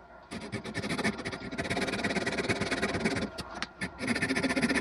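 Fine-toothed Japanese razor saw cutting into a wooden swimbait body in quick rasping strokes. There is one long run of sawing, a short pause, and then more sawing near the end.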